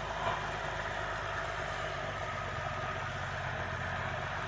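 Bucyrus dragline's diesel engine running steadily with a low, even hum.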